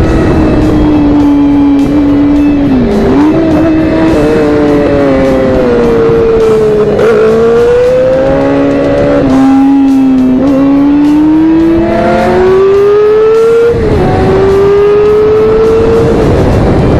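Sport motorcycle engine revving up and down through the bends, its pitch climbing under throttle and falling off, with a sudden drop in pitch near the end before it climbs again. Heavy wind rush on the microphone lies under it.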